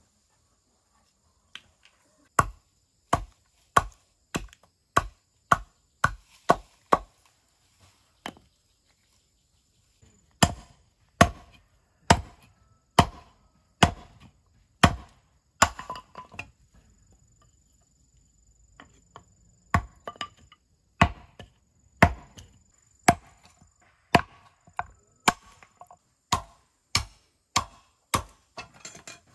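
Machete chopping bamboo on a wooden block: sharp, separate chops in runs of a little under two a second, with a pause of a few seconds in the middle.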